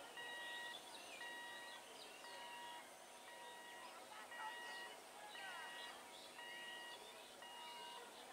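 An electronic warning beeper sounding a steady beep about once a second, each beep about half a second long, with birds chirping.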